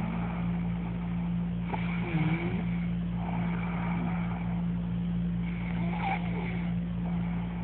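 A steady low mechanical hum, like a motor or engine running, with fainter hazy sounds coming and going every few seconds.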